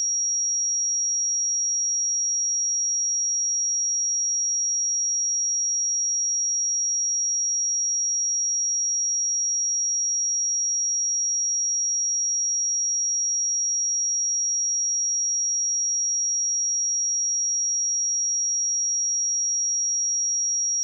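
A pure 5665 Hz sine-wave test tone, a single steady high-pitched note at constant loudness, played as a speaker and headphone test.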